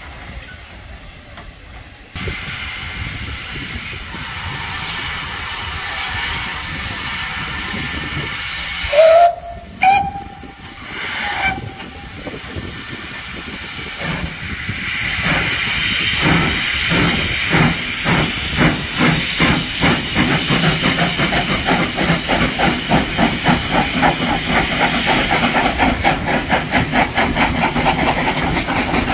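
Double-headed steam locomotives, a saddle tank leading, starting away with their train. Steam hisses steadily, the whistle sounds twice about nine and ten seconds in, then the exhaust beats start slowly and quicken as the train gathers speed.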